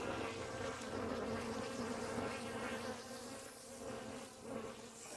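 Honey bees buzzing in a steady hum around frames pulled from an open hive, easing off slightly in the second half.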